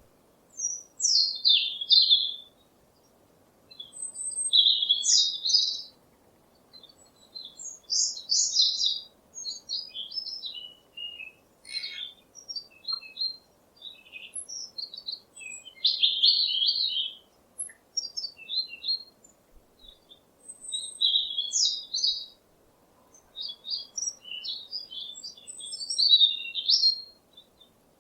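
Songbird song: short phrases of quick, high chirps and warbles, each a second or two long, repeated every few seconds with brief pauses between.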